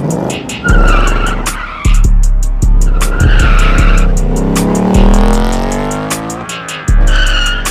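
A car's tyres squealing three times, with an engine revving up and rising in pitch about four seconds in, over a hip-hop track with heavy bass and a steady beat.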